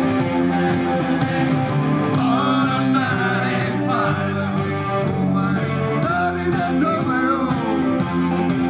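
Live rock song: a male lead singer with electric guitar and electric bass, a second voice joining in the singing partway through.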